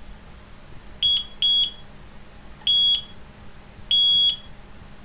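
Delkim vibration-sensing bite alarm beeping four times, single high-pitched tones at uneven gaps, the last two longer. Set to maximum sensitivity, it is registering slow line movement as the hanger drops back, as on a drop-back bite.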